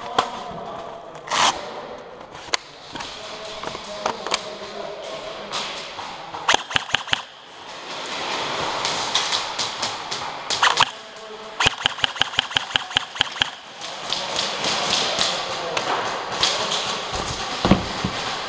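Airsoft guns firing in an indoor arena: sharp cracks in short strings, a quick burst of about five around six and a half seconds in and a run of about ten evenly spaced shots, roughly six a second, from about eleven and a half seconds in, with a few single shots between.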